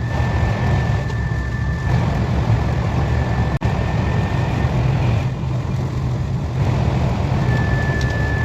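KTX high-speed train running at speed: a steady low rumble with a thin high whine that fades out about halfway through and comes back near the end. There is a brief dropout in the sound a little before the middle.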